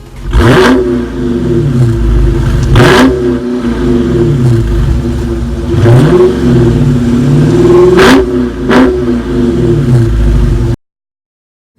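Dodge Charger SRT's 6.2-litre V8 revving hard several times, its pitch climbing and falling again and again, with a few sharp cracks from the exhaust. It is loud, and it cuts off abruptly about a second before the end.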